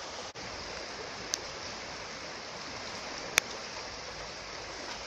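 Steady rush of a river in flood, fast brown water running over its bed in a strong current. Two sharp clicks cut through it, about a second and a half and about three and a half seconds in.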